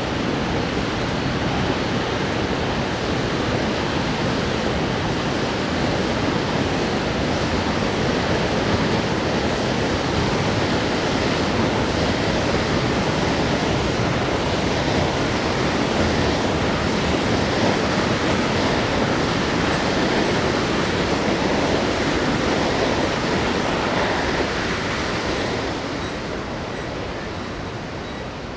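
Steady roar of a waterfall, Elk Falls, in the canyon below: a constant rushing-water noise that eases off a little near the end.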